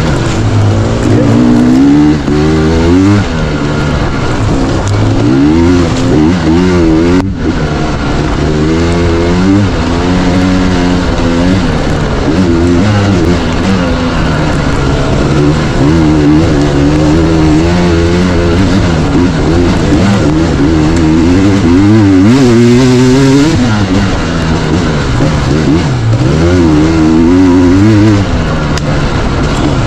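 Dirt bike engine running hard, its pitch rising and falling over and over as the throttle is opened and rolled off, with a brief drop about seven seconds in.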